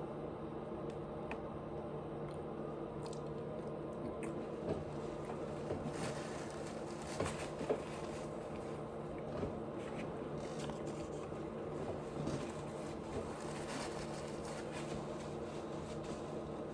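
Close-miked chewing of a mouthful of food: soft wet squishing with mouth clicks and smacks, busiest about halfway through, over a steady low hum.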